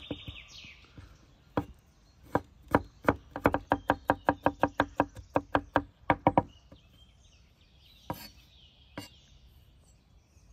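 Wide-bladed kitchen knife dicing pickled gherkins on a wooden cutting board. A few separate chops come first, then a fast, even run of about five chops a second for some three seconds, then a couple of single chops near the end.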